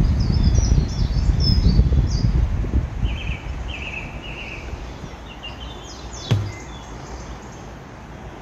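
Wind rumbling on the microphone, heaviest in the first three seconds and then dying down, with small birds chirping in the trees. A single sharp knock about six seconds in.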